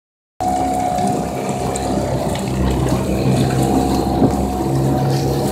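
Suzuki 4 hp outboard motor running steadily at cruising speed, pushing a small aluminium boat along, with water splashing against the hull.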